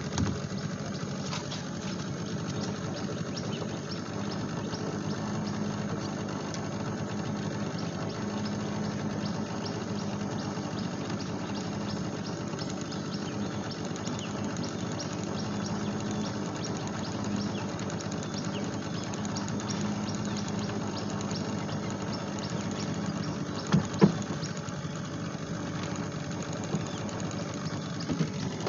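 A small boat's engine running steadily, a low hum with a fast, even ticking over it. Two sharp knocks come about 24 seconds in.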